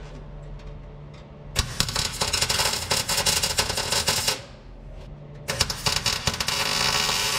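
Welding arc crackling on sheet steel as a new floor pan is tacked into a 1958 VW Beetle, in two runs: about three seconds, then a short pause, then about two more seconds that stop abruptly.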